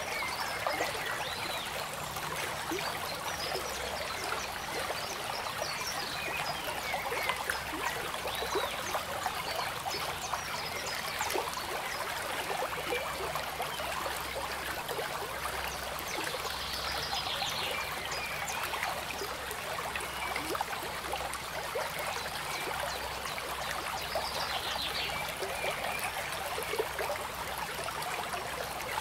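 Steady running water of a small stream, babbling without a break, with a few faint high chirps over it.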